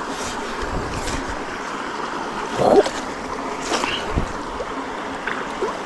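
Steady rush of flowing stream water, broken by a few splashes as a lift net on its pole goes back into the water, the loudest about two and a half seconds in.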